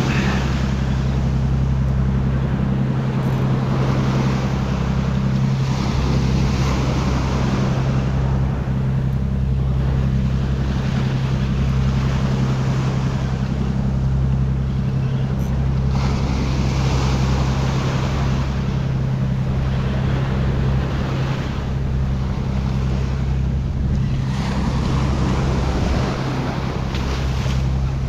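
Ocean surf breaking and washing up the beach in surges every few seconds, over a steady low hum.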